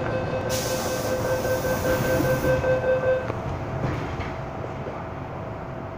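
Inside a car of an MTR M-Train electric multiple unit: steady train noise with a held whine that cuts off about three seconds in, and a hiss for a couple of seconds near the start.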